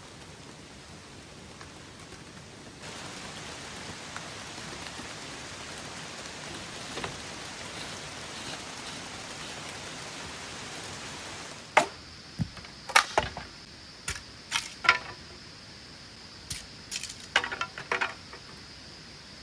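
Steady hiss of rain that cuts off suddenly about two-thirds of the way through. It is followed by a series of sharp knocks and clicks, like handling or work on materials, over a faint steady high tone.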